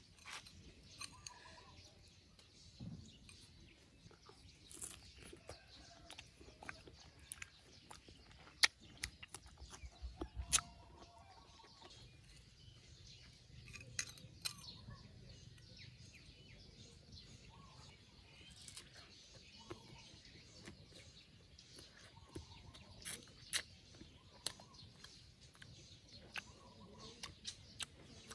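Knife cutting and scraping a crisp green mango over a bowl: scattered sharp clicks and small crunches at an irregular pace, with faint bird chirps in the background.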